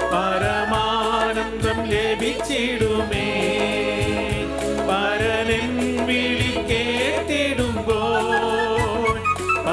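Malayalam Christian worship song played on electronic keyboards with a steady beat, with a group of voices singing along.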